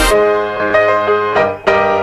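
Music: slow, sustained keyboard chords with no drums, briefly dropping away about one and a half seconds in before a new chord comes in.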